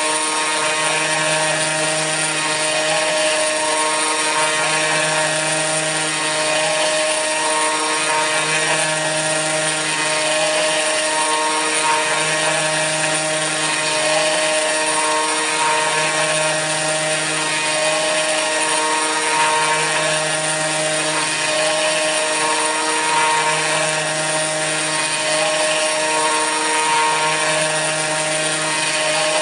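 Kress FME-1050 router spinning steadily at high speed as the spindle of a CNC mill cutting aluminium, with a low hum that comes and goes about every three and a half seconds as the machine works back and forth.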